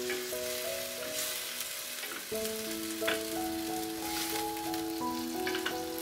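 Okra and potato pieces sizzling in a frying pan with a little water and tomato paste, stirred with a wooden spoon that clicks against the pan a few times. Background music of held notes plays along.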